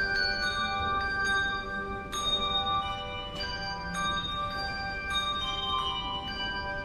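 Tuned bells ringing a slow melody: struck notes every second or two, each ringing on and overlapping the ones before.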